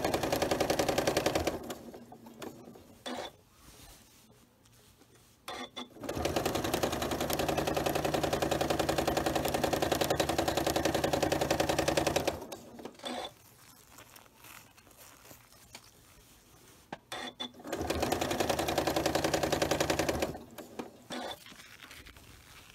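Janome Memory Craft 9450 sewing machine with its walking foot stitching through a quilt in three runs: briefly at the start, for about six seconds in the middle, and for a couple of seconds near the end. It stops in between, and a few faint clicks sound in the pauses.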